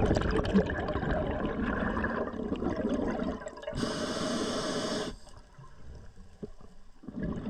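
Underwater water noise picked up by a dive camera: a rough, gurgling rush of water for about three seconds, then a shorter, higher hiss from about four to five seconds in.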